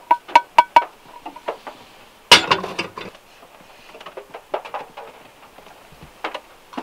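A wooden spoon knocking against a small frying pan several times in quick succession, each knock ringing briefly. About two seconds in, the pan is set down on a portable gas stove's grate with a loud clatter, followed by softer scrapes and taps of a wooden spoon scooping tapioca flour from a plastic tub.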